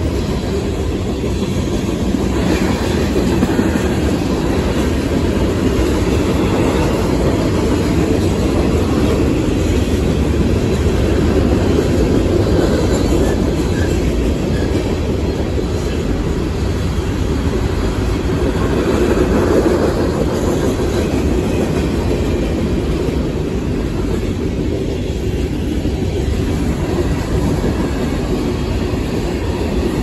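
Freight cars rolling past on steel rails: a loud, steady wheel-on-rail noise that is strongest in the low end.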